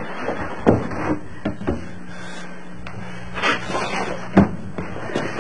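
A handful of sharp knocks and bumps, wooden in character, spaced out irregularly with the loudest about four and a half seconds in, over a faint low steady hum.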